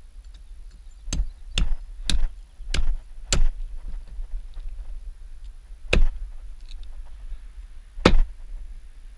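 Cleaver chopping raw beaver meat on a plywood board: seven sharp chops, five in quick succession in the first few seconds, then two more spaced a couple of seconds apart.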